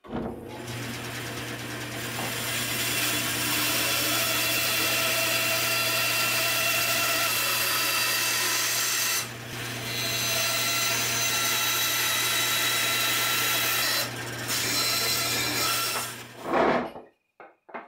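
Bandsaw running with a steady motor hum while it rips a thin wooden strip, the cutting noise easing briefly twice partway through. It stops near the end, followed by a brief knock.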